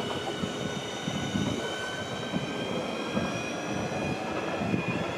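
Class 465 Networker electric multiple unit pulling away: the traction motors whine in several tones that climb slowly in pitch as it gathers speed, over the rumble of the wheels on the rails.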